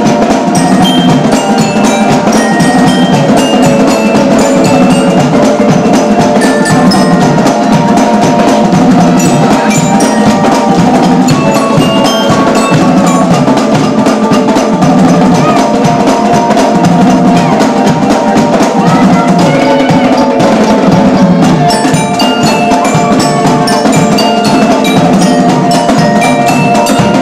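Marching band playing loud: snare drums keeping up a rapid beat under a bright glockenspiel-like melody, with other sustained pitched parts.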